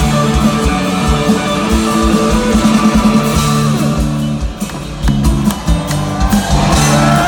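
Live rock band playing through a stadium PA, with electric guitars holding ringing notes over bass and steady drum hits in an instrumental passage. The music thins out briefly about halfway through, then the drums come back in.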